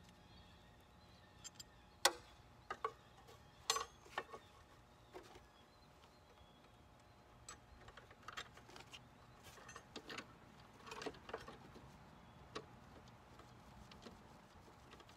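Irregular sharp metallic clicks and clinks of hand tools and small metal parts being handled and fitted on a riding lawn mower, the loudest about two and four seconds in, with a run of softer ones later.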